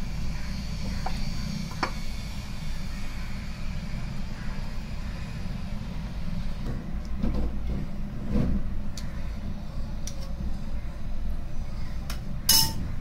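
Ice cream scoop scraping into a brick of ice cream and knocking against a glass, with a few faint clicks and one sharp clink near the end, over a steady low hum.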